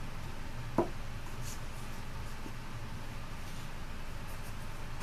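Steady low room hum. About a second in there is one short knock, a plastic toy piece set down on the cloth-covered table, with faint handling rustles after it.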